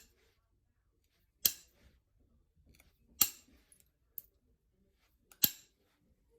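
Flintknapping novaculite: three sharp clicks about two seconds apart, with a fainter one between the last two, as flakes snap off the stone point.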